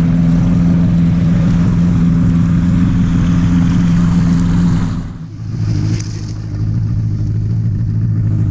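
Motorboat engine running steadily under way, with a steady low hum over a haze of rushing noise. About five seconds in the sound breaks and gives way to a lower, steadier engine note.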